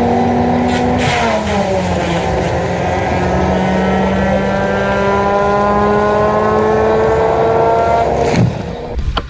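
A high-revving machine motor runs steadily under load, its pitch dropping slightly about a second in and then drifting slowly. Near the end it winds down with a quick falling sweep and the sound drops away.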